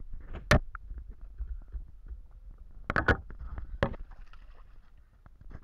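Water splashing and sharp knocks as a hooked bass thrashes at the surface beside a plastic kayak. There is a loud knock about half a second in, then a quick cluster about three seconds in and another just before four seconds.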